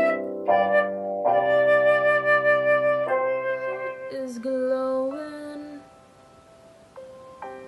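Concert flute playing a stepping melody over a low held accompaniment. A few seconds in, it gives way to a woman singing long held notes that slide in pitch, which fade to a quiet stretch with a few soft notes near the end.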